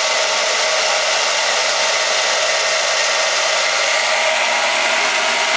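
Handheld hair dryer running steadily, a constant rush of air over a faint motor hum.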